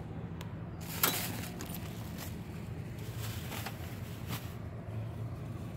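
Things being handled at an open car door, with one sharp knock about a second in and a few lighter clicks later, over a steady low hum.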